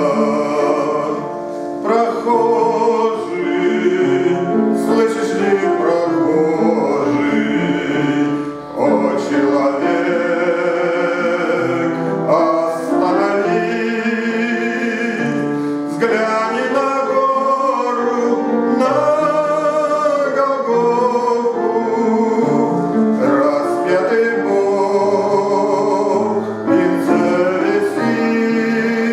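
A man singing a church hymn to instrumental accompaniment, in long continuous sung phrases.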